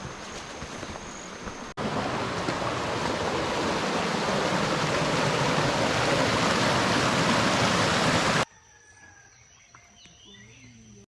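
Rushing water of a waterfall, a loud, even rush that starts suddenly about two seconds in and cuts off abruptly near the end. Before and after it is a quieter outdoor stretch with a high, steady whine and, near the end, a few bird chirps.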